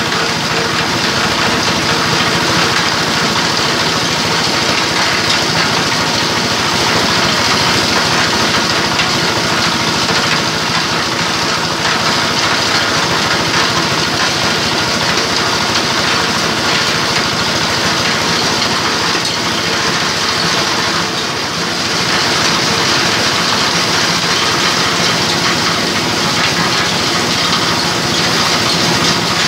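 Multipurpose grinding mill (mesin cacah) driven by an 8 hp diesel engine, running steadily under load as dry crop waste is fed into its hopper and milled to powder: a steady engine drone mixed with a grinding hiss. The loudness dips briefly about two-thirds of the way through.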